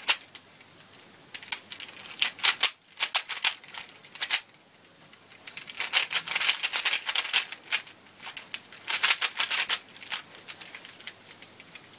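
Plastic clicking and clacking of a 3x3 Dayan speedcube being turned quickly by hand, in flurries of rapid turns separated by pauses of about a second, during the final corner-placing steps of a solve.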